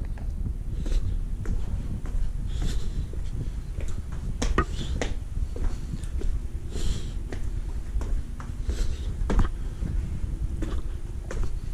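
Footsteps on a walk, a scatter of short clicks and knocks at uneven spacing, over a steady low rumble.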